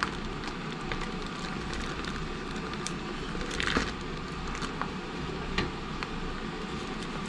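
Plastic bag and paper wrapping around raw meat crinkling and rustling as they are handled and pulled open, with scattered small crackles and a louder rustle about three and a half seconds in, over a steady background hum.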